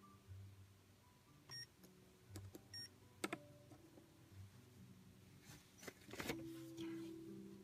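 Saitek Sensor Chess Turbo electronic chess computer giving two short beeps about a second apart, followed by light clicks of plastic chess pieces being set down on its sensor board.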